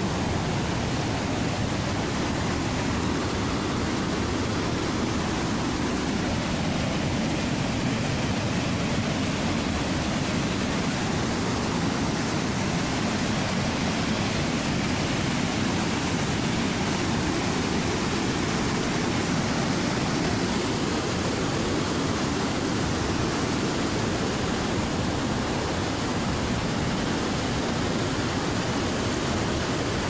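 Fast-flowing river rushing over rapids below a waterfall: a steady, unbroken rush of water.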